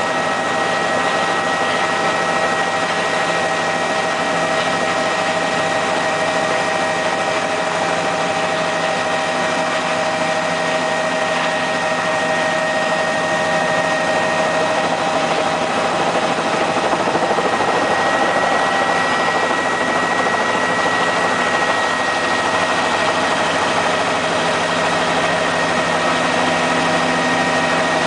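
Helicopter engine and rotors running steadily in flight: a dense drone with steady high whining tones on top, growing slightly louder past the middle.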